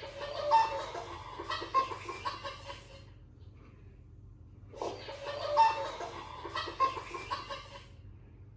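A recording of a chicken clucking, played twice: two identical runs of clucks about three seconds long each, the second starting just under two seconds after the first ends.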